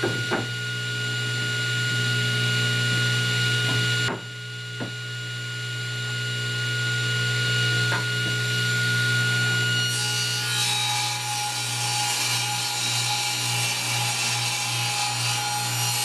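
Power saw running with a steady motor hum; about ten seconds in, the blade starts cutting into wood and a rushing noise joins the hum.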